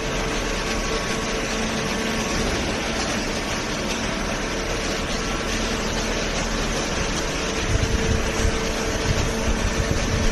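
Cardboard baler with its feed conveyor running: a steady mechanical hum and hiss with a faint held tone, and a few low knocks near the end.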